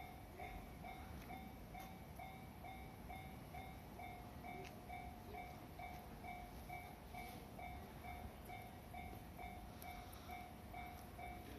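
Japanese railway level-crossing warning bell ringing steadily, its electronic 'kan-kan' strikes repeating about two to three times a second.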